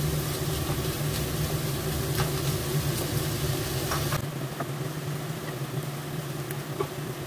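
Diced onion and sliced chicken sausage sizzling in butter in a frying pan, with a few short clicks of the spatula or wooden spoon against the pan. A steady low hum runs underneath.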